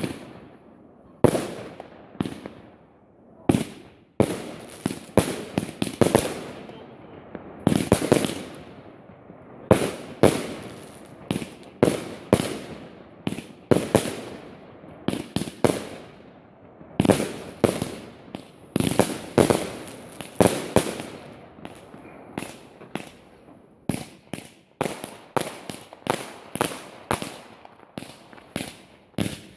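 Fireworks going off in quick, irregular succession: dozens of sharp bangs, several to a second at times, each trailing off in a short rumbling echo.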